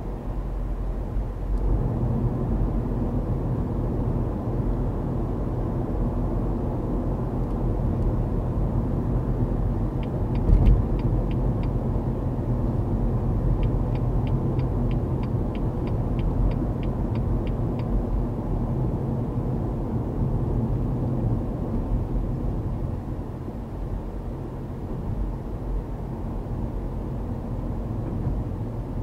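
Steady road and engine rumble heard inside a moving car's cabin. Twice, a run of even clicks at about three a second, typical of the turn indicator ticking, and one short thump about a third of the way through.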